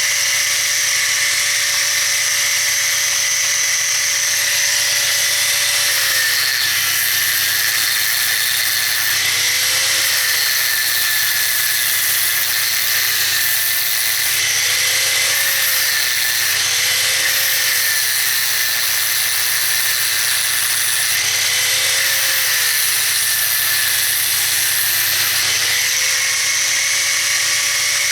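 Electric angle grinder with a thin cut-off disc cutting through the steel bead wires of a tractor tire. It is a loud, steady high whine over a harsh grinding hiss, and the motor's pitch sags and recovers several times as the disc bites into the wire.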